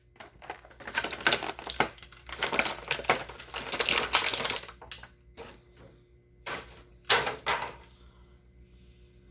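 Hard plastic action-figure parts being handled and clicked together: a dense run of clicking and rattling for the first five seconds, then a few separate clicks.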